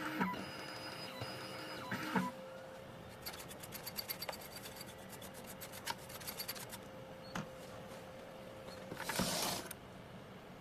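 2M2 Tank CNC key cutting machine at work on an HU64 key blank: a steady motor hum with scattered clicks, a run of rapid even ticking in the middle, and a short burst of noise near the end.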